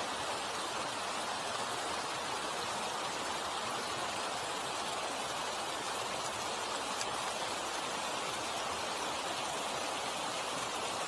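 Mountain stream water running steadily, an even rushing hiss.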